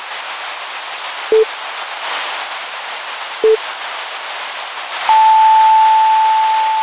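Static-and-beep sound effect: a steady hiss of static with a short low beep about a second in and another about three and a half seconds in, then a long, steady, higher, loud beep from about five seconds in.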